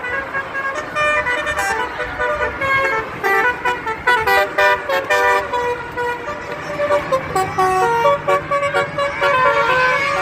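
Bus 'telolet' musical air horn (Basuri type) playing a fast tune of short notes that step up and down in pitch, several notes sounding together. A low steady drone of traffic joins about two-thirds of the way through.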